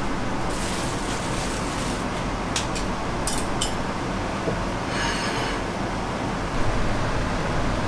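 Steady rushing hum, with a few light clicks and clinks of a knife and fork against a steak on a wooden cutting board about three seconds in, and a brief scrape a couple of seconds later.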